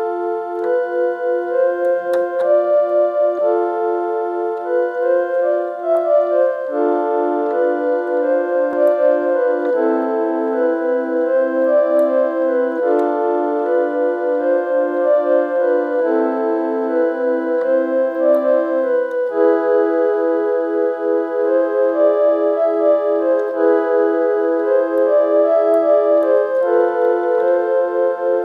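Electronic keyboard playing a tune with organ-like tones: a melody over repeated chord notes, the chord changing every three seconds or so.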